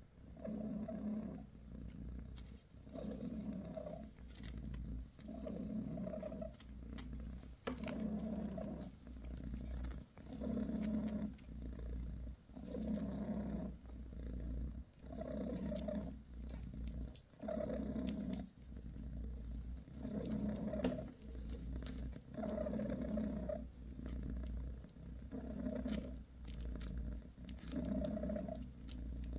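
British Shorthair mother cat purring while her newborn kittens nurse. The purr swells and fades with each breath, about every two seconds.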